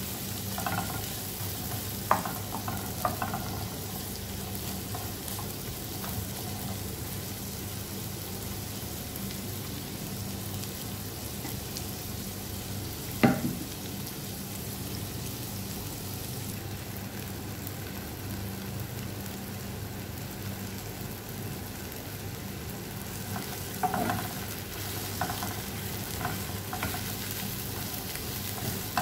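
Sliced onion and garlic sizzling in a hot pan, stirred with a wooden spatula that scrapes and taps against the pan now and then, with one sharp knock about halfway and a cluster of louder clatters near the end.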